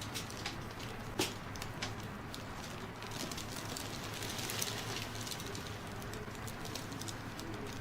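Soft rustling and rubbing of hands working over skin and clothing during a massage, with scattered light clicks, one sharper click about a second in, over a low steady hum.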